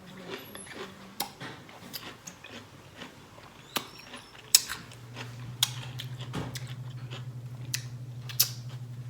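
Crunching and chewing of a whole pickle, with sharp crisp bites scattered through. A low steady hum comes in about halfway.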